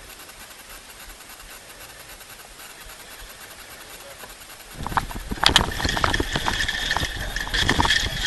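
Wind and water hiss on the bow of a racing sailboat. About five seconds in, a gybe sets off a sudden loud clatter of knocks from sheets and deck gear, with a steady high whistling tone over it.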